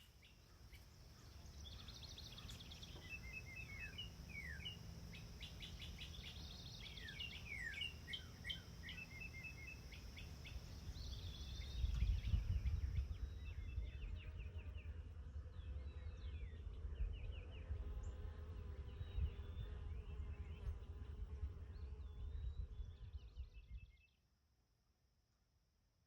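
Several songbirds singing, with repeated chirps and trills, over a heavy low wind rumble on the microphone. The wind is the loudest part, and the sound drops away about 24 seconds in.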